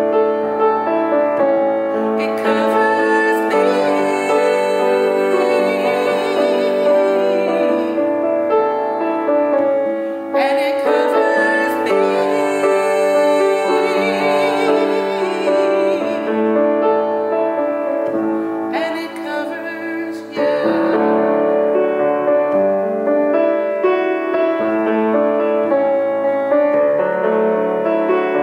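A woman sings a hymn while accompanying herself on a grand piano. Her voice comes in two long phrases with vibrato, and the piano carries on alone between them and through the last several seconds.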